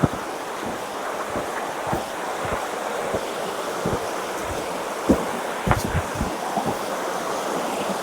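A creek rushing steadily over rocks close by, with scattered low thumps of footsteps on the trail.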